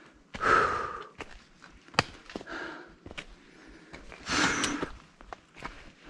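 A hiker's heavy sighing breaths, out of breath from a steep climb under a full backpacking pack: two long breaths about four seconds apart, with a few sharp clicks and taps between them.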